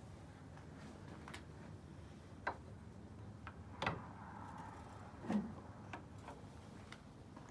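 Night-time town ambience: a low, steady hum of distant traffic with a faint passing vehicle sound in the middle, broken by sharp clicks and ticks at irregular intervals, the strongest about four and five seconds in.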